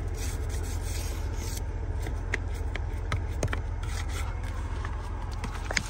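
Packed snow and ice being scraped and knocked off a truck trailer's marker lights: repeated short scrapes and light knocks over the steady low hum of the truck idling.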